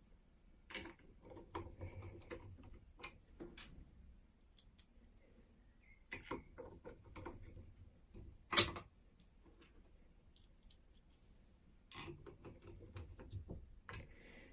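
Scattered small metallic clicks and taps of a 5-lever mortice lock and its parts being handled, with one louder sharp clack about eight and a half seconds in.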